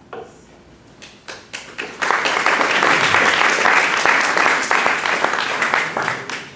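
Audience applauding: a few scattered claps at first, then full applause from about two seconds in, dying away near the end.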